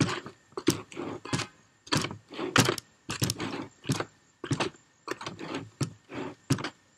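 A hand tool scraping and stirring through tile mortar in a plastic bucket, in repeated short strokes about two a second. The mortar is being hand-mixed, worked off the bottom and sides so that no dry powder is left.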